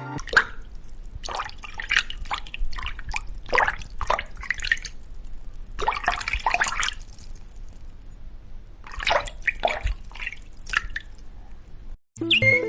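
Water dripping and plopping into a small pool: many irregular drops, coming in quick clusters with short gaps between.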